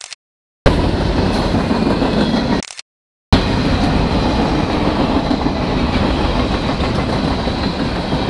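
Freight train cars rolling past close by: a steady rumble and clatter of steel wheels on the rails, broken by two brief silences in the first three seconds.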